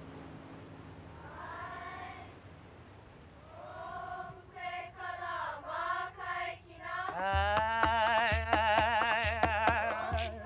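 Hawaiian chant for hula: a wavering, vibrato-laden voice enters softly in short phrases. About seven seconds in, louder, fuller chanting starts over a low, repeating drumbeat.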